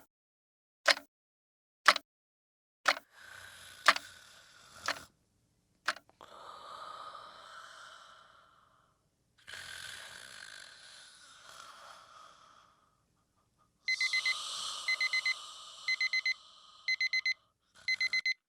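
A clock ticking about once a second, then two long breathy snores, then a digital alarm clock beeping in quick groups of four.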